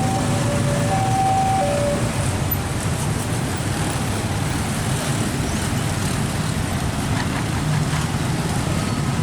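A two-note electronic chime sounds for the first couple of seconds, then stops. Under it and after it, a steady low rumble of moving vehicles runs on.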